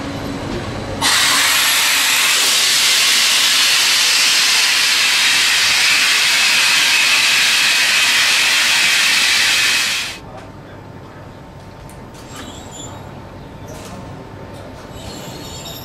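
Loud, steady hiss of compressed air venting from a train's air-brake line, starting abruptly about a second in and cutting off suddenly some nine seconds later, as a locomotive is uncoupled from its coaches.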